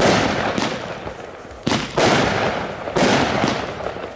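WECO Big Surprise firework battery firing shots that burst overhead: four loud bangs in quick succession, each trailing off, with fainter pops between them.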